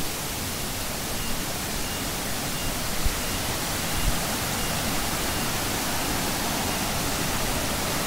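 Steady rushing of a waterfall and its rocky stream, an even hiss that grows a little louder, with a couple of low bumps about three and four seconds in.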